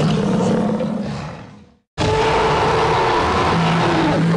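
Dinosaur roaring sound effect. It fades out about a second in, breaks off into a moment of silence, and starts again abruptly near two seconds, repeating the same roar.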